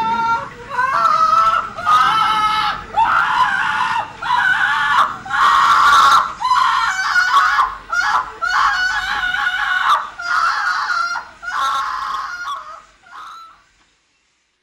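A voice screaming in panic: about a dozen shrill, wavering shrieks, roughly one a second, fading out near the end.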